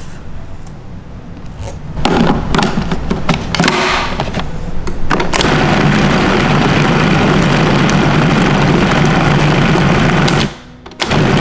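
Food processor motor chopping chunks of raw blackfin tuna into a mince. About two seconds in, a few short pulses, then a steady run of about five seconds that stops abruptly, then one more short burst near the end.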